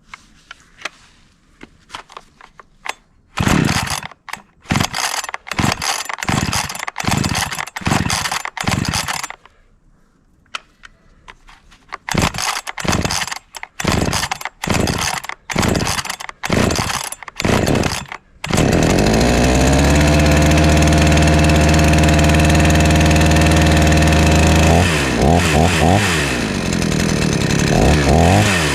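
Hyundai two-stroke chainsaw cold-started by hand. There are two runs of quick starter-cord pulls with a pause between them, then it catches and idles steadily. Near the end the throttle is blipped twice, revving up and dropping back.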